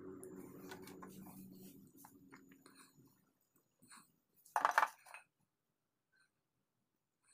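Small ball bearing on an electric wood planer's armature spun by hand, giving a low, rough whir that slowly dies away, then a short loud metallic clatter about four and a half seconds in as the part is handled. It is being checked during greasing.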